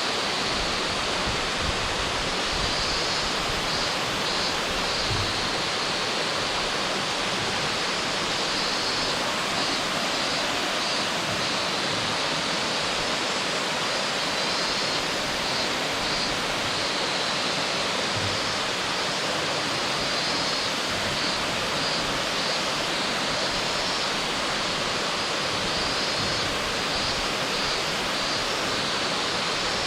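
Waterfall pouring, a steady, dense rush of water with no change. Faint high chirps recur in short bursts above it.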